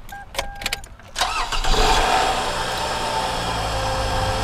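A car engine is cranked by the starter about a second in, catches at once and settles into a steady, smooth idle. Before it there are a few light clicks and short electronic tones from the car.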